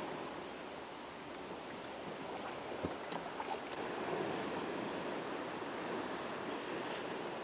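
Choppy sea water lapping around a fishing kayak, heard as a steady wash. About three seconds in there is one sharp click, followed by a few light ticks.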